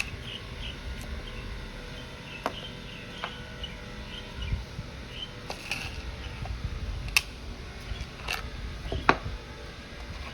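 A few sharp clicks or light taps, spaced seconds apart, over a low background rumble and faint, quick bird chirps.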